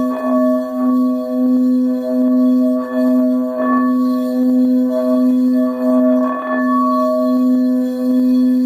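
Frosted quartz crystal singing bowl being sung with a mallet circling its rim: one steady low tone with higher overtones, swelling and dipping in a slow regular pulse, with faint rubbing from the mallet now and then.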